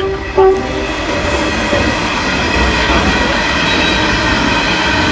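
Freight train hauling mine ore running past on the rail line: a steady, loud rumble of wagons on the track with faint high squealing tones from the wheels.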